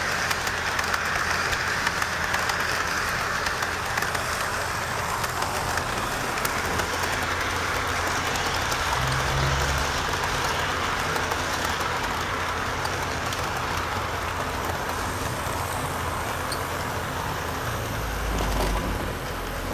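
HO scale model trains running on the layout's track: a steady whir of the motors and rumble of the wheels on the rails.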